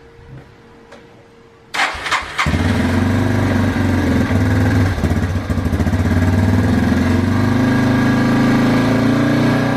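Dirt bike engine starting about two seconds in, catching after a few short strokes, then idling steadily as it warms up.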